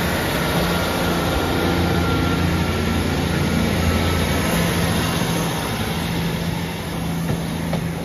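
Northern Class 150 Sprinter diesel multiple unit 150275 running its diesel engines as it draws out of the station: a steady, even-pitched low engine drone that eases off slightly about halfway through.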